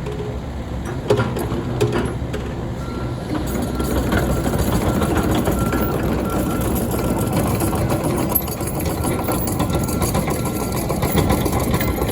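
Komatsu PC138US-11 hydraulic excavator running, its diesel engine a steady low hum with a few sharp clicks in the first two seconds. About three and a half seconds in it grows louder and busier, with a thin high whine cutting in and out.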